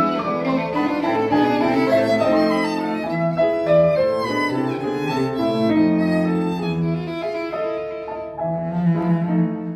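A piano trio of violin, cello and piano playing classical chamber music.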